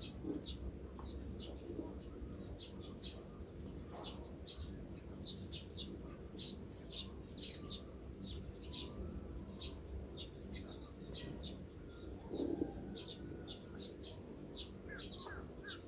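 Small birds chirping in quick, continuous short high notes over a steady low background rumble, with a brief louder low sound about twelve seconds in.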